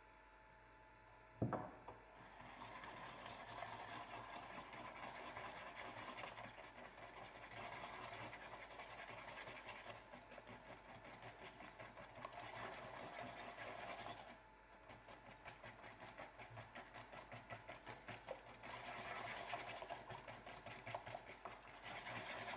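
A single knock, then a wire whisk beating tangerine purée with sugar and starch in a saucepan: a fast, steady run of strokes that pauses briefly about fourteen seconds in.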